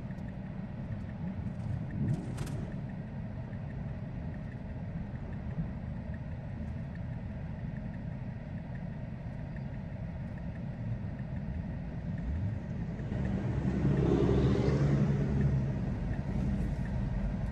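Low, steady rumble of road traffic heard from inside a stopped car's cabin. Near the end a car passes close in front, growing louder and then easing off.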